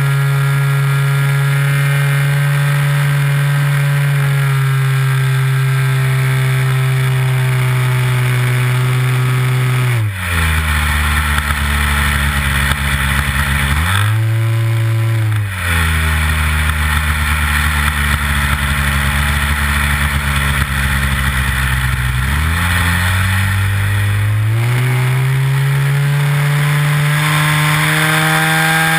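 Nitro glow engine of a Big Stik 60 RC airplane, heard close up from a camera mounted on the plane, running at high throttle, then throttled back sharply about ten seconds in. It is opened up briefly, throttled back again, and brought steadily back up to high revs over the last few seconds.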